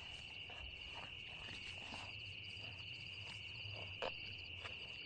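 Faint night chorus of crickets: one continuous high-pitched trill, with a second, higher insect trill in rapid pulsing runs that start and stop. Soft scattered clicks and one sharper click about four seconds in.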